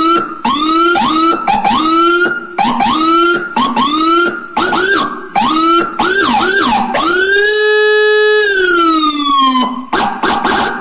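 Whelen HHS electronic siren sounding through its speaker: a quick run of short rising whoops, then about seven seconds in a sweep up to a high tone held about a second, followed by a slow falling glide. Near the end it switches to a harsh buzzing tone.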